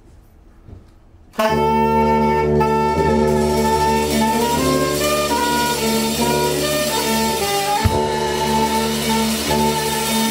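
A jazz quartet of tenor saxophone, electric guitar, tuba and drums comes in together all at once after a short hush. The tenor sax carries the melody over held low tuba notes, with one sharp drum hit about eight seconds in.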